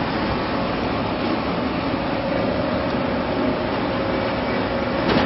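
Electric vegetable strip-cutting machine running with a steady mechanical whir. A faint steady whine joins about two seconds in, and there is a short knock near the end.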